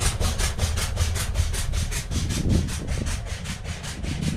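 Steam engine exhaust chuffing in rapid, even beats, about six or seven a second, over a steady low rumble. The chuffs fade out about three seconds in.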